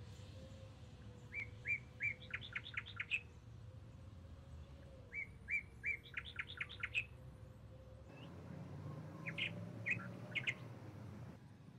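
A songbird singing: twice, a short phrase of a few separate notes followed by a quick run of higher notes, then a few more scattered chirps near the end, over a faint steady hum.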